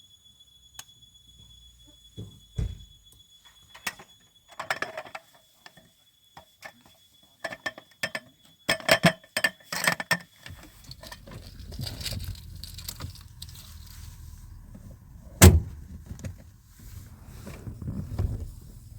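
Assorted clicks, rattles and knocks of things being handled, with a low steady rumble setting in about ten seconds in and one sharp, loud thump about fifteen seconds in.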